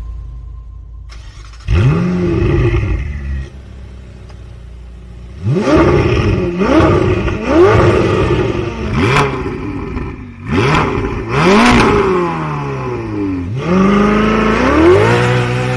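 Ferrari 4XX Siracusa Spider's twin-turbo V8 starting with a flare of revs about two seconds in and settling to idle, then blipped hard half a dozen times, each rev rising and falling quickly, with a longer, held rev near the end.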